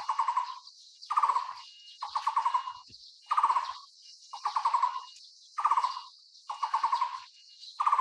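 Taiwan barbet calling: a run of short, rapidly pulsed trilled notes, about one a second.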